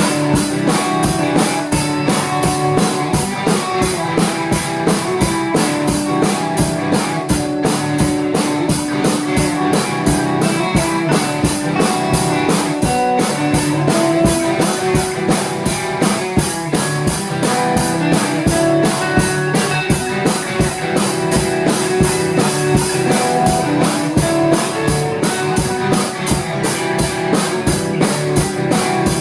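Live rock band playing an instrumental passage: a drum kit keeping a fast, even beat under guitar.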